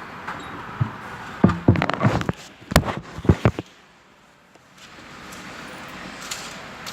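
A quick series of knocks and clicks, like objects being handled, followed by a steady low background noise.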